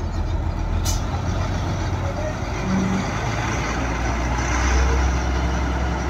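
Lovejeet Crop Star combine harvester's diesel engine running loud and steady, with a short sharp click about a second in.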